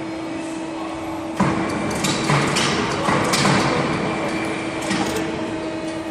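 A machine's steady hum, with a series of sharp clanks and knocks over it from about a second and a half in.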